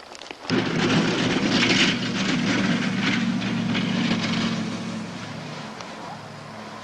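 A motor engine running with a low, steady hum, coming in suddenly about half a second in and then fading over several seconds as it draws away.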